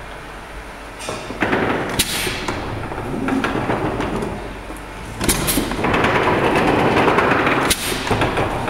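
Mill steam engine being opened up to full steam, with steam rushing in surges from its open cylinder drain cocks, loudest for a couple of seconds in the second half. Several sharp knocks come through the hiss.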